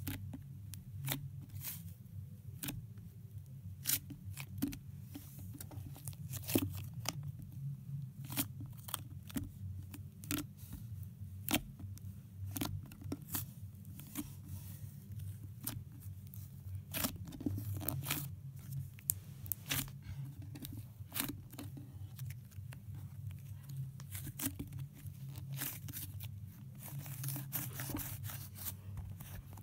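Slime being squeezed and poked by hand, giving irregular sticky pops and crackles several times a second, over a low steady hum.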